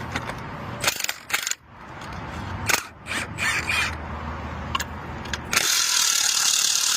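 Short metallic clicks and rattles of a socket and ratchet on the wheel's lug nuts, then an impact wrench hammering for about a second and a half near the end on tight, partly stripped lug nuts.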